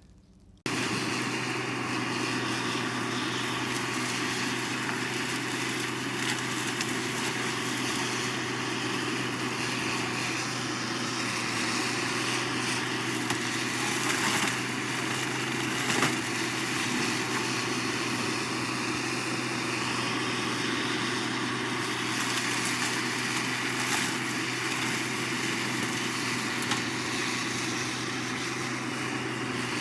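Engine running steadily at an even speed, with a couple of sharp knocks or cracks about midway.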